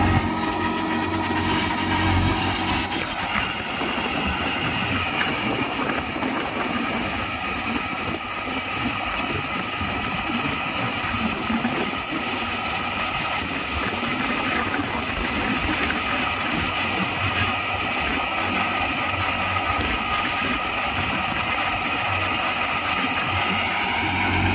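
Massey Ferguson 9500 Smart tractor's diesel engine running steadily as it pulls a trenching machine across the field.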